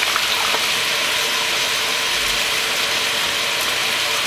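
Chopped onions and peppers frying in a stainless steel pot: a steady sizzle and crackle.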